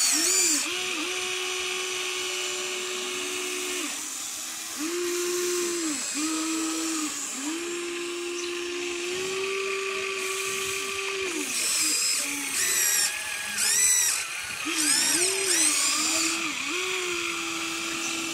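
Huina RC excavator's small electric motors whining as the boom and bucket work, a steady tone that stops and starts and bends in pitch every second or two. Higher, gliding whines come in over the middle-to-late part.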